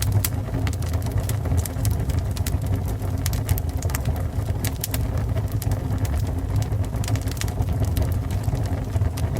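Fire burning: a steady low rumble with frequent irregular crackles and pops.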